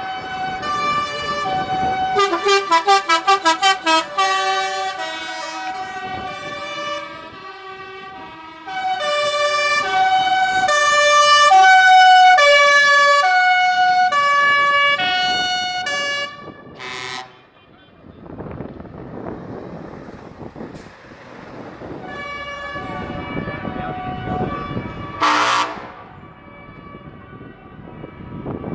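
Truck's musical horn playing a tune in stepped notes, with a fast run of repeated notes a couple of seconds in and a longer melody in the middle. Then the truck's engine and tyres as it drives past, with a short loud burst of noise near the end.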